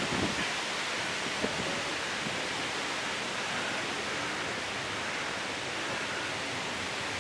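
Steady, even rushing noise outdoors, with a single faint click about a second and a half in; no clear duck calls stand out.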